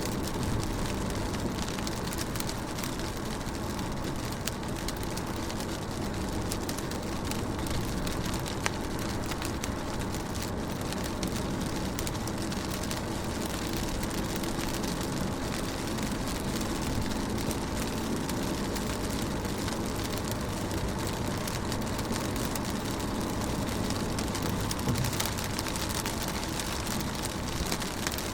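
Steady rain on a car window: a dense, even hiss of falling drops with many small taps, unchanging throughout.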